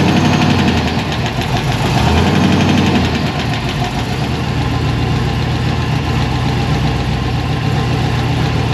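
Supercharged V8 in a Chevy Silverado, fitted with a new cam and an LT4 blower, idling steadily while not yet tuned.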